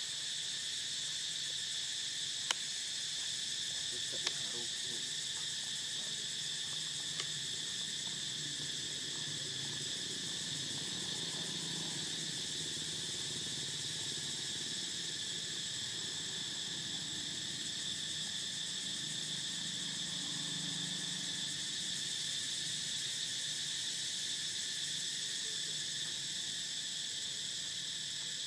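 Steady, high-pitched insect chorus that runs unbroken, with a few sharp clicks about two and a half and four seconds in and a faint low murmur underneath.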